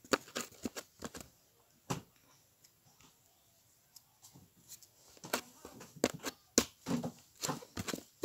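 Sticky shampoo-based slime on hands making irregular small clicks and pops, in two clusters with a quiet pause of about two seconds in between. The slime is very sticky and wet.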